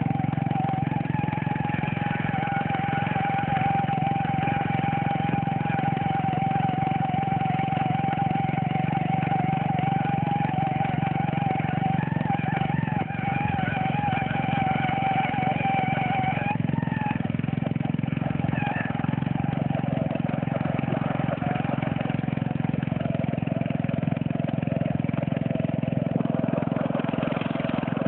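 Small lawnmower engine running steadily at high speed, with a steady whine over the engine note that breaks off a little over halfway through.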